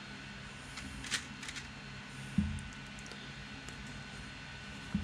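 Light clicks and rustles from a small PWM motor speed controller board and its wires being handled, with a dull thump about two and a half seconds in and another near the end, over a steady low hum.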